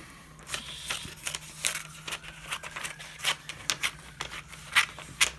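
Scissors cutting through a magazine page in a run of quick, irregular snips.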